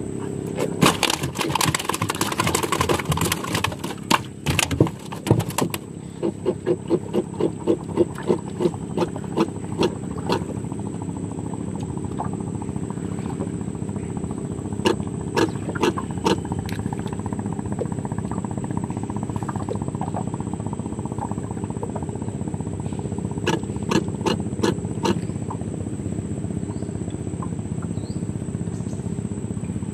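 A steady high-pitched insect drone over a low steady hum, broken by a dense rush of clicks and knocks in the first few seconds, then a run of evenly spaced clicks at about three a second that stops about ten seconds in, with a few short clusters of clicks later.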